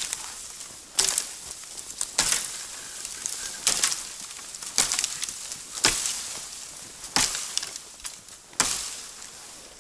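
Slow footsteps crunching in hard, frozen snow, about seven steps a little over a second apart.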